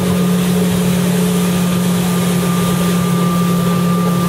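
Motorboat engine running steadily at speed while towing inflatable tubes, a constant low hum with rushing wind and water behind it.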